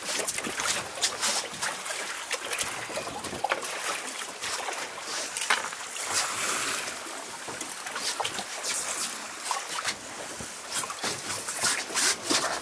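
Sea water lapping and splashing against a small boat's hull, with many small clicks and rustles of hands working hooks and line on a live squid.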